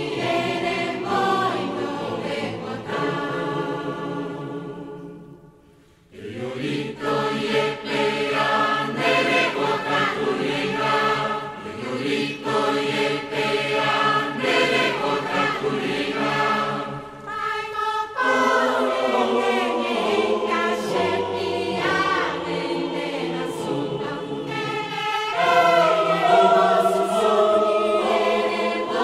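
Choir singing, a choral setting of an indigenous chant. The singing fades almost to silence about six seconds in, then the voices come straight back in and carry on.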